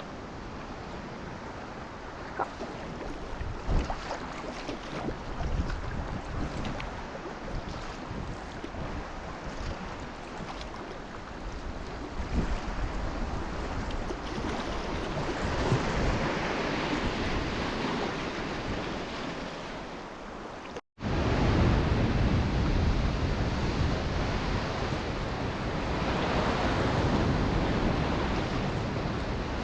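Ocean waves and sea water washing, with wind buffeting the microphone. The sound breaks off for an instant about two-thirds of the way through, then returns louder.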